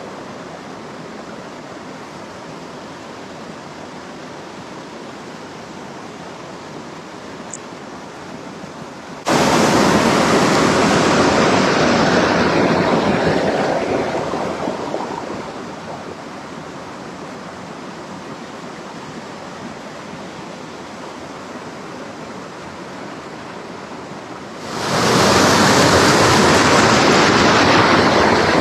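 Water of a small stream rushing steadily over a little waterfall. It turns much louder all at once about a third of the way in, fades back down a few seconds later, and swells loud again near the end.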